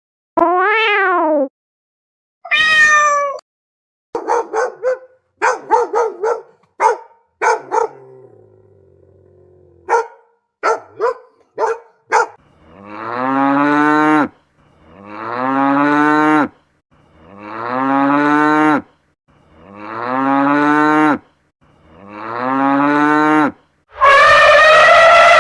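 A run of separate recorded animal calls: a short meow near the start, a string of short calls, then five long, evenly spaced lowing moos from cattle, each rising then falling, and a loud blaring trumpet-like call starting near the end.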